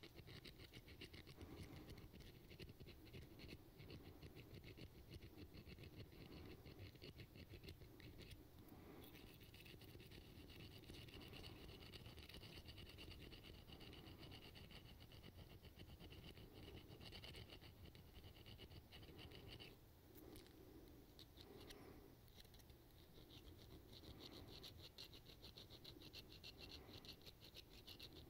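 Quiet metal-on-metal rasping of a hook sharpener drawn across the hook points of a metal fishing lure in rapid, short strokes.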